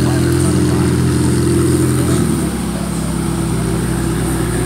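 A car engine idling with a steady note that shifts to a slightly lower, quieter note about two seconds in.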